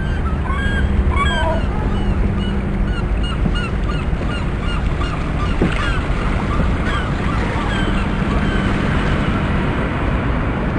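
A rapid series of short, bird-like honking calls, about three a second, over a steady low background of wind and water noise; the calls thin out near the end.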